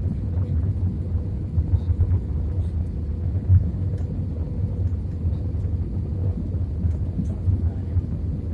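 Cabin noise inside an Airbus A320 on approach with flaps extended: the steady low rumble of engines and airflow, with a faint steady hum above it.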